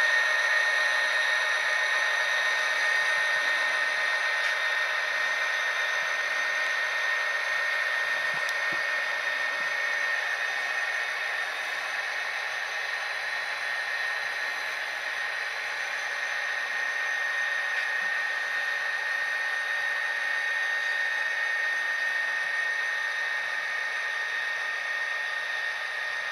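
HO-scale model diesel locomotives (an SD60 and an SD40-2) with Tsunami sound decoders playing diesel engine sound through their small speakers as they run: a steady drone with a high whine and no bass. It gets gradually quieter over the first half.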